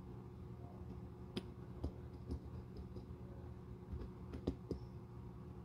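Small sharp clicks and taps, about half a dozen spread irregularly, as a thin metal glue applicator works adhesive into a wallet's split edge, over a faint low hum.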